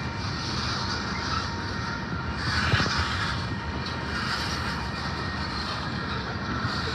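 Train passing at close range: the steady rolling rumble of wheels on rails, with a single knock about two and a half seconds in.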